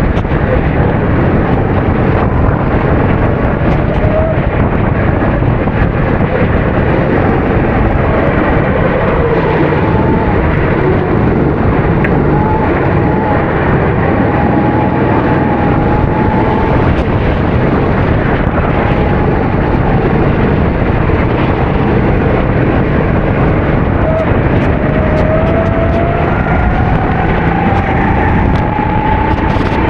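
270cc four-stroke kart engine running at race pace, its pitch rising again and again as it accelerates, over a dense rushing noise.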